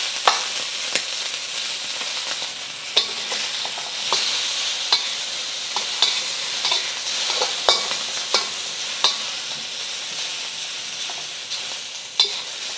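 Small shrimp sizzling in hot oil in a wok as they are stir-fried, a steady frying hiss broken by irregular clicks and scrapes of a utensil against the wok about once a second.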